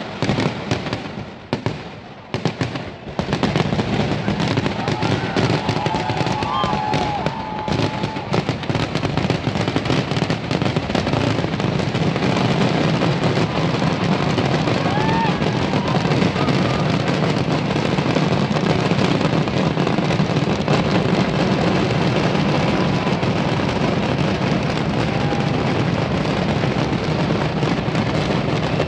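Kerala temple-festival fireworks (vedikettu): a few separate loud bangs, then from about three seconds in a continuous, dense rattle of firecracker explosions with no break.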